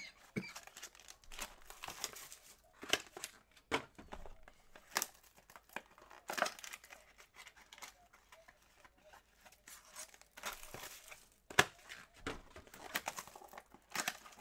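Trading-card box packaging being unwrapped and opened by hand: irregular crinkling and tearing of the wrapping, with a few sharp knocks as the boxes are handled.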